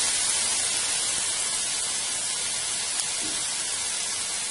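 Chicken and vegetables sizzling in a hot disco (steel disc pan), a steady frying hiss that eases slightly over the few seconds.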